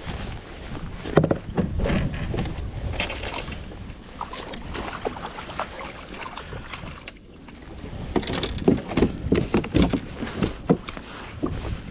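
Water splashing and irregular knocks on a sit-on-top fishing kayak, with clusters of knocks about a second in and again near the end, over wind rumbling on the microphone.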